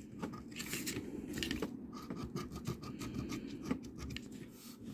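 Scratch-off coating being scraped off a Colossal Cash lottery scratch ticket with a small scratcher tool, in a run of short, irregular scraping strokes.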